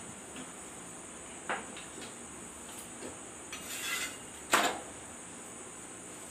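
Kitchen handling sounds of dishes and utensils: a light knock about a second and a half in, a short rustle, then a sharper, louder knock a little later, over a steady faint high hiss.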